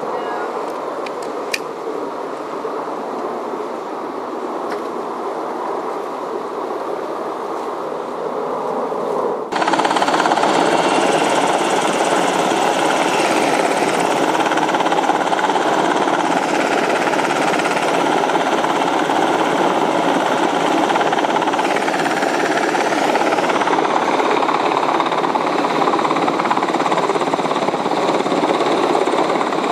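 Sikorsky UH-60A Black Hawk's twin-turbine engines and rotor running with a rapid blade chop. It is heard at a distance at first, then about nine seconds in it jumps suddenly louder and close as the helicopter hovers low to fill its slung water bucket.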